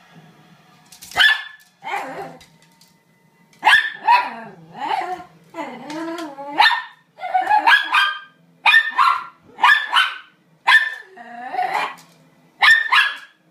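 A dog barking over and over, about once a second, with a longer wavering whine-like yowl near the middle. It is an excited, demanding bark aimed at the letters left on the fireplace mantel.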